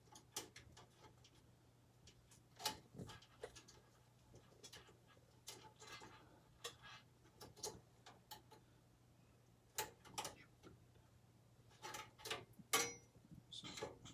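Thin metal I/O shield clicking and tapping against the steel rear cutout of a computer case while it is pushed and lined up to snap into place, with irregular light clicks and a few louder knocks.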